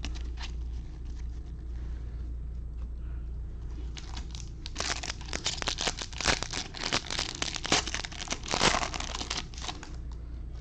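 Crinkling and tearing of a foil trading-card pack wrapper being handled, with a dense run of sharp crackles from about halfway in to near the end.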